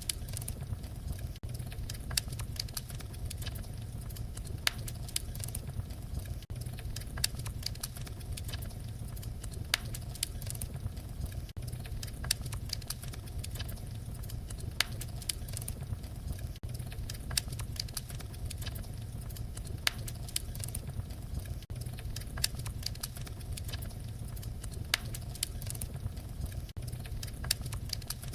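Wood fire crackling: a steady low rumble of flames with frequent sharp pops and snaps. The recording is a short loop that repeats about every five seconds, with a brief dip in level at each seam.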